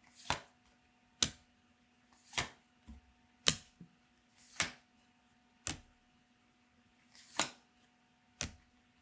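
Yu-Gi-Oh! trading cards being moved one at a time from the front of a small stack to the back: a short swish or snap of card stock sliding against card stock about once a second, eight in all.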